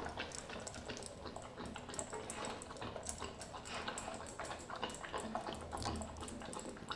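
A Doberman eating raw meat: a steady run of wet, clicking chewing and licking sounds.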